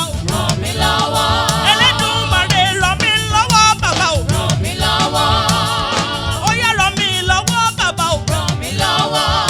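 Upbeat Yoruba gospel praise music: a steady drum groove and bass under a singing voice with gliding, wavering lines.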